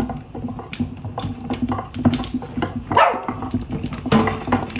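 Handmade wooden fighting robots clacking and knocking as they are swung against each other, a quick, irregular run of wooden hits and rattles. A short cry-like call cuts in about three seconds in.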